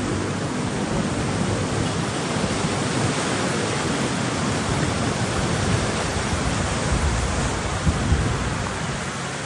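Heavy rain pouring down steadily in a storm, as a dense even hiss, with a short low rumble about three-quarters of the way through.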